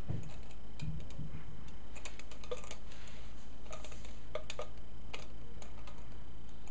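Light, irregular plastic clicks and taps as a toddler's fingers work the top of a small plastic tube-shaped container, over a steady low hum.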